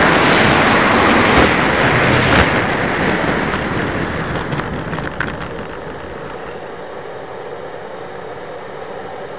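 RC model jet rolling over grass with a loud rushing sound that fades over about five seconds as the plane slows to a stop. A quieter, steady running sound is left.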